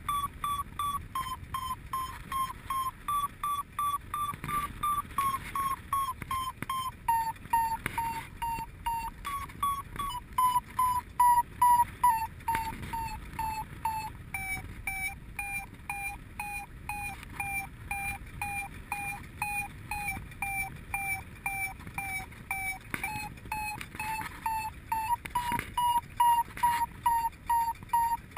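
Paragliding variometer beeping rapidly, about three beeps a second, the pitch sinking somewhat past the middle and rising again near the end. This is the vario's climb tone: the glider is rising in lift, the pitch following the climb rate.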